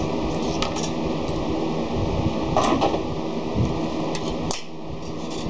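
A few light clicks and knocks of hand tools being picked up and handled on a workbench, over a steady background hum.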